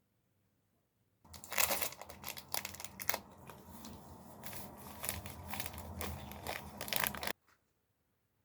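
Crinkling and rustling, as of something being crumpled or handled, with many sharp crackles; it starts suddenly about a second in and cuts off near the end.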